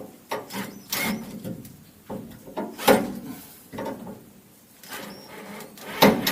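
Irregular knocks and clatters of hard objects being handled, with the loudest knock about three seconds in and another near the end.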